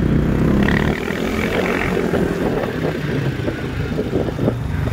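Wind buffeting the microphone on a moving motorcycle, with road and traffic noise; a low engine drone is loudest in the first second, then drops away.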